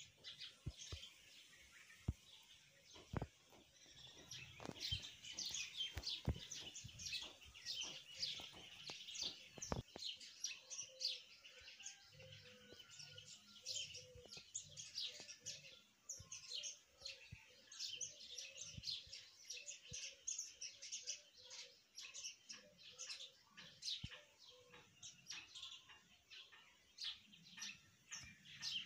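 Birds chirping: a dense, continuous run of short, high-pitched chirps, with a lower call repeated over and over through the middle stretch and a few sharp clicks in the first ten seconds.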